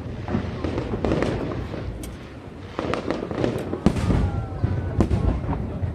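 Aerial fireworks show exploding: irregular sharp bangs, several a second, over a low rumble and crackle, with the loudest bursts about four and five seconds in.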